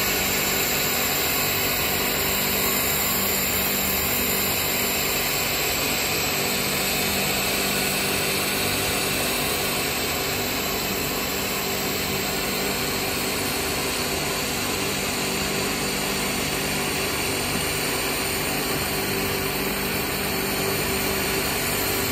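Three-layer PE/PPR pipe extrusion line running, a steady mechanical drone with a constant low hum under it.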